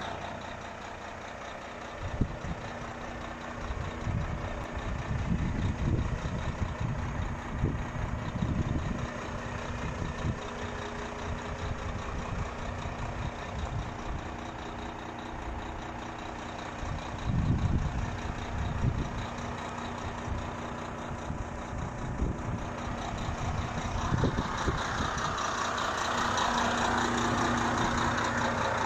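Renault T460 truck's heavy diesel engine idling steadily, with irregular low rumbles over it; it grows louder near the end.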